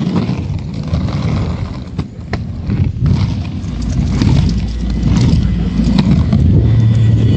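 Skateboard wheels rolling on pavement: a loud, continuous low rumble with scattered clicks. A steady low hum comes in near the end.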